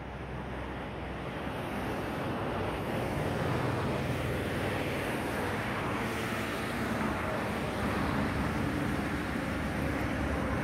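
Distant jet noise from a Boeing 767-300ER's GE CF6-80C2 turbofan engines on final approach: a steady rush that slowly grows louder.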